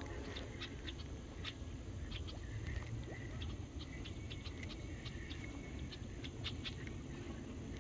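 Steady low rumble of wind on the microphone, with scattered faint clicks and a few brief high chirps.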